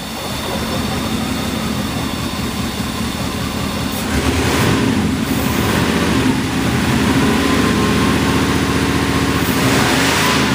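The 3.8-litre V8 of a 1981 Mercedes 380SL running, its sound getting louder about four seconds in and then holding steady. This is a car in for misfiring, sputtering and lack of power.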